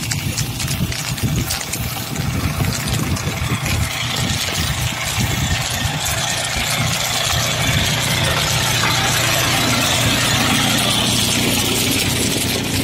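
Polaris firefighting utility ATV running with a steady low engine hum. A steady hiss joins in about four seconds in.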